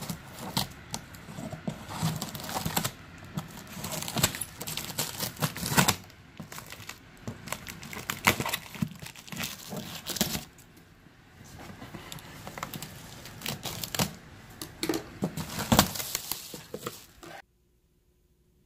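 Scissors cutting and tearing clear packing tape on a cardboard shipping box, with cardboard flaps rustling, crinkling and knocking as the box is opened. It cuts off suddenly about a second before the end.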